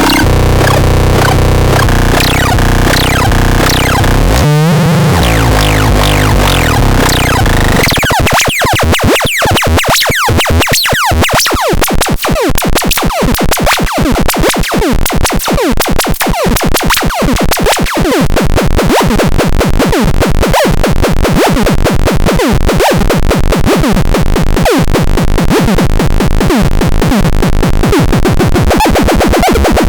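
Harsh electronic synthesized sound from the MEXADEX 4: layered steady drones with a single falling sweep, then from about eight seconds in a fast run of short falling chirps, several a second, over a steady bass.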